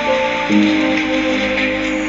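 Background music, with held notes that change about half a second in.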